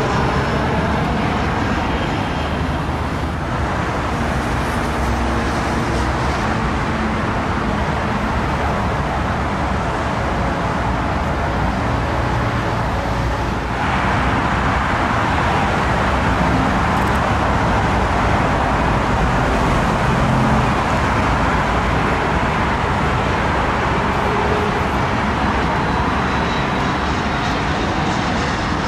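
Steady roar of jet aircraft on final approach with landing gear down: first a KLM Cityhopper Embraer regional jet, then, after an abrupt change about halfway through, a business jet.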